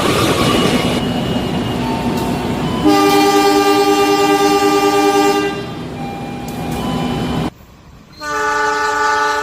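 Train horn sounding steady chord blasts over a running-train rumble: a loud blast about three seconds in lasting a couple of seconds, then the sound cuts out briefly near the end and another horn blast starts.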